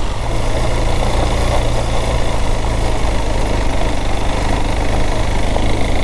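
KTM 390 Adventure's single-cylinder engine running at a steady, unchanging pitch while riding slowly down a dirt road, with road noise.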